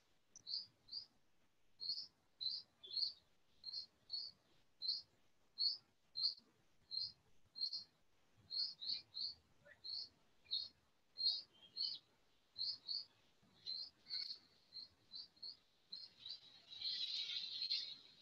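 A small bird chirping over and over, faintly, in short high chirps about two a second at uneven spacing. Near the end a louder burst of hiss lasts about two seconds.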